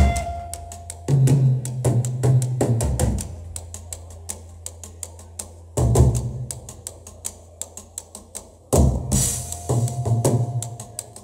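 Live hardcore punk band playing: a fast, steady ticking beat on the drum kit, with the full band (distorted guitar, bass and drums) crashing in three times in short stop-start bursts.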